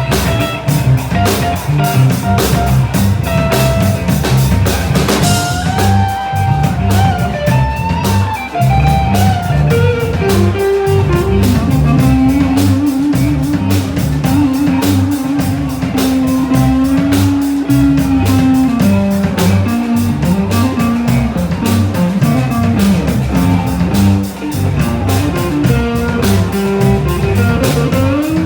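Live rock band playing an instrumental passage: electric guitar, bass and drum kit, with a lead line that bends up and down and holds one long wavering note in the middle.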